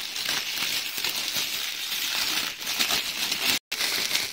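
Thin clear plastic bag crinkling and rustling as a sneaker is worked out of it by hand, breaking off for an instant near the end.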